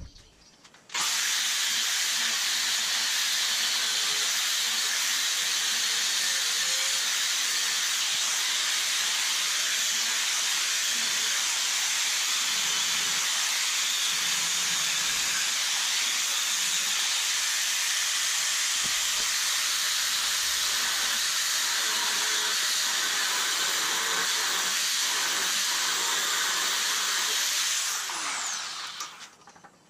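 Handheld angle grinder grinding into steel frame tubing: it starts abruptly, runs at a steady high hiss under load, then spins down with a falling pitch near the end.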